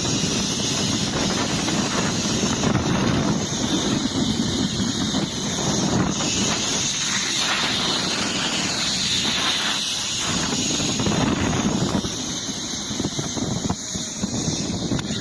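Zipline trolley pulleys running along the steel cable with a steady high-pitched whine, over wind rushing across the microphone.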